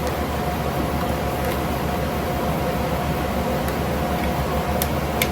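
Room fans running: a steady whirring hum with a faint steady tone. A couple of faint clicks come near the end.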